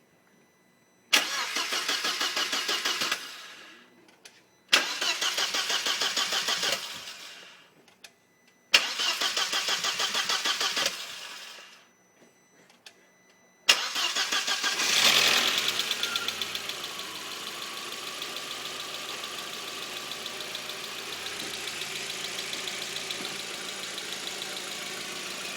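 Audi A4 engine being cranked by the starter in three attempts of about two seconds each that fail to catch; on the fourth it fires about 14 seconds in, flares up briefly and settles to a steady idle. The hard start is something the owner thinks comes from a faulty engine speed sensor.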